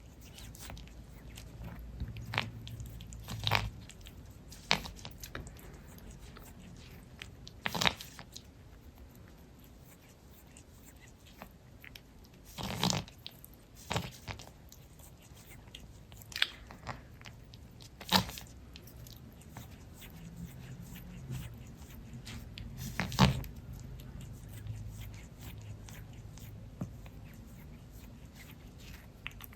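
Cat grooming herself with her tongue and teeth: short, wet smacking and clicking mouth sounds at irregular intervals, some louder than others, over a quiet background.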